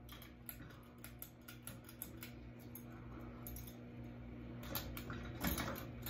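Light clicks and small metallic jingling from a ceiling fan's pull chain and pull-chain switch being worked by hand, over a steady low hum. The clicks come close together and are loudest near the end.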